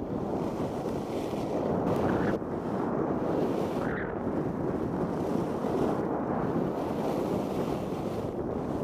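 Wind buffeting an action camera's microphone while skiing downhill at speed: a steady rushing noise, mixed with the slide of skis over groomed snow.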